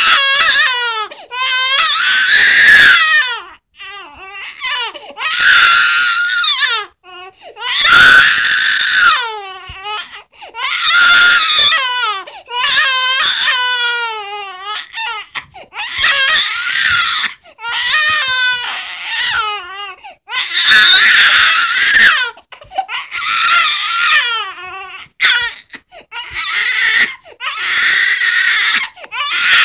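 An infant crying hard, in a string of about a dozen loud, high-pitched cries, each one to two seconds long, with short catches of breath between.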